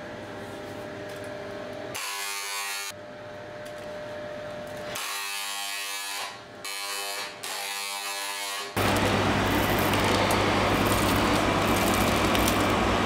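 Handheld electric spray gun buzzing in four short bursts of about a second each as it sprays egg wash onto raw brioche dough. Near the end a louder, steady rushing noise with a low hum takes over.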